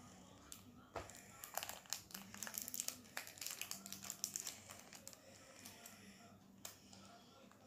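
Plastic wrapper of a pack of collectible cards crinkling and tearing as it is handled and opened by hand. The crackling starts about a second in, comes thick and fast for a few seconds, then thins to an occasional crackle.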